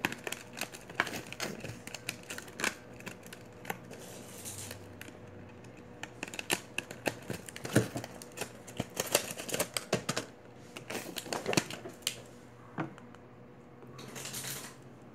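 A run of irregular light clicks and taps of small hard objects being handled, with a short hiss near the end.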